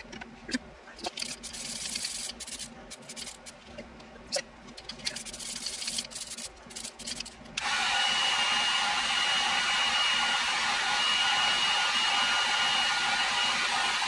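Duracoat aerosol spray can hissing in a series of short bursts as a coat goes onto a pistol slide. At about seven and a half seconds a heat gun switches on and runs steadily and louder, with a thin high whine, flashing off the fresh coating.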